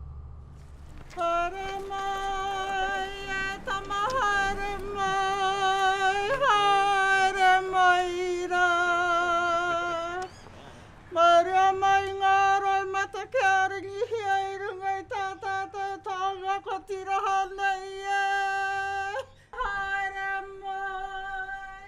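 A woman's voice singing long, held, wavering notes on a near-steady pitch, with brief upward flicks. It runs in long phrases that break off about ten seconds in and again shortly before the end.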